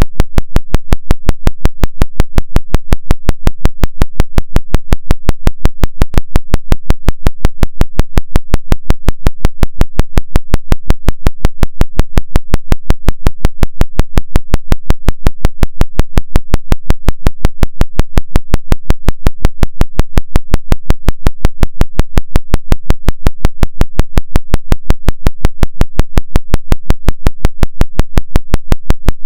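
Synthesized tone pulsing on and off at an even rate of about five and a half beats a second: a 5.5 Hz theta-wave brainwave-entrainment track.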